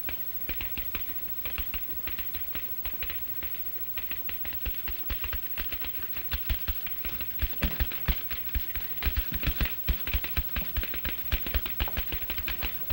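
Rapid, irregular clicking and tapping, several clicks a second, getting louder from about seven seconds in.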